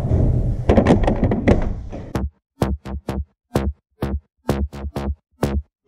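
Electronic music: a dense stretch for about two seconds, then a stuttering rhythm of sharp, downward-sweeping electronic hits with heavy bass, roughly two a second.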